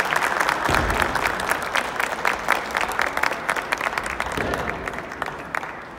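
Spectators clapping after a point is awarded in a kendo bout, fading away over about five seconds.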